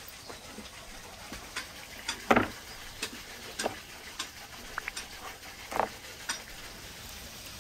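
A large raw beef rib rack being handled on a wooden table: a heavy thud about two seconds in, then several softer knocks and slaps as the meat is shifted and lifted, over a steady background hiss.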